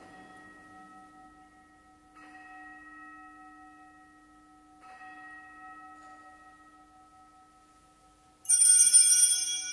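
An altar gong struck three times, about two and a half seconds apart, each stroke left to ring; then, about a second before the end, a cluster of small altar bells shaken, much louder and brighter. These are the bells marking the elevation of the chalice at the consecration of the Mass.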